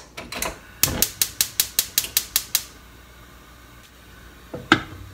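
Gas hob's igniter clicking rapidly, about ten clicks at about five a second, as a burner is lit under a pot of water. A single knock follows near the end.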